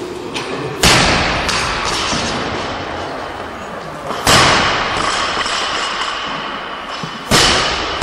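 Loaded barbells with bumper plates dropped onto lifting platforms: three heavy crashes about three seconds apart, about a second in, near the middle and near the end, each ringing on and fading slowly in a large hall.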